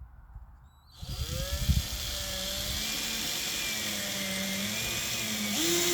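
Power drill driving a screw into a wooden step board: the motor starts about a second in, runs steadily, then rises in pitch and gets louder near the end.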